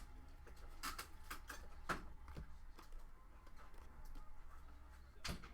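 Faint scattered clicks and taps of trading cards being handled and flipped through, with one sharper tap near the end, over a steady low hum.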